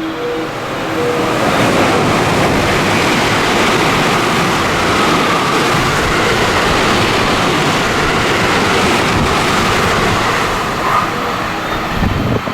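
Train passing through a station at speed without stopping: a steady rush of wheels on rail and moving air that builds over the first couple of seconds, holds for about nine seconds, then eases off near the end.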